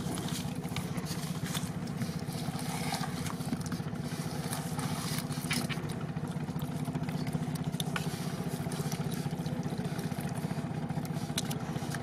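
A small engine running steadily at an even speed, a low, fast-pulsing drone, with a few sharp clicks scattered over it.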